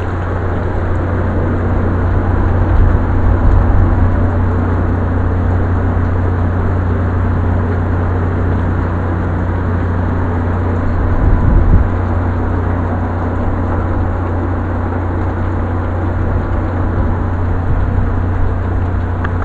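Steady rain falling in a storm, a continuous rushing hiss with a constant low rumble underneath that swells briefly twice.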